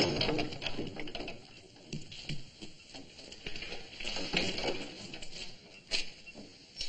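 Irregular patter of footsteps and small knocks on wooden boards, with louder clusters at the start and around four to six seconds in.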